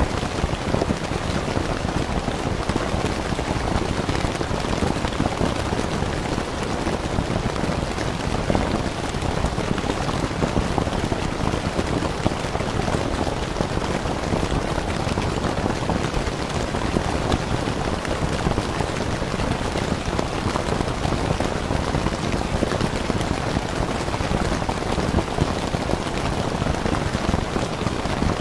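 Steady rain falling on a tent: a dense, even wash of countless small drop impacts, fuller in the low end, that holds at one level throughout.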